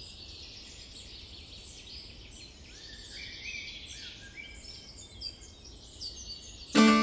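Songbirds singing in woodland: many quick chirps and short falling phrases repeated over and over. Plucked acoustic guitar music comes in loudly just before the end.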